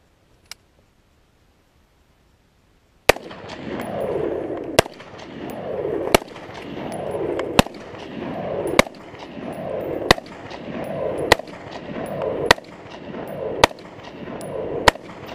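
Sig Sauer 516 Patrol, a short-stroke gas-piston AR-15-pattern rifle, firing ten semi-automatic shots of 5.56 NATO 62-grain green-tip ammunition. The shots start about three seconds in and come about one every 1.3 seconds, each report followed by a rolling echo. The even pace shows the rifle feeding and cycling each round with no stoppage.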